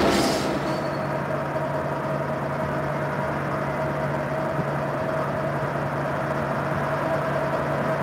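Diesel locomotives of a Union Pacific manifest freight running as they approach: a steady engine drone with a low hum and a fainter higher hum. The noise of the previous passing train fades out in the first half second.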